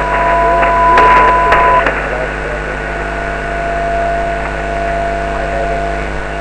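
Shortwave ham radio receiver audio between transmissions: steady band hiss and hum, with a steady whistle from a carrier for the first couple of seconds and a brief burst of garbled signal about a second in.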